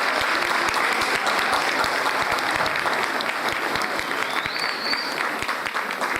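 Audience applauding steadily, with a short rising whistle about four seconds in.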